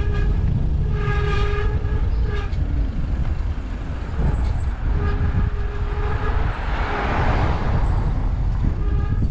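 A horn sounding in several blasts of one steady pitch, a longer one about a second in and another about five seconds in, over a steady deep rumble.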